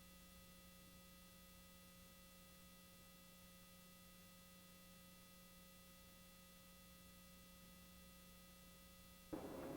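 Near silence: a faint, steady electrical hum of a few fixed tones, with no other sound until a louder sound cuts in abruptly just before the end.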